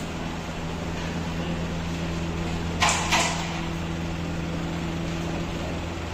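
Steady low electrical hum, with two short sliding scrapes close together about three seconds in, most likely a carrom striker moved across the powdered board.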